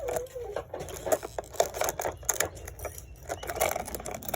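Stiff clamshell-style plastic packaging being pried and cut open by hand and with scissors: irregular clicks and crackles.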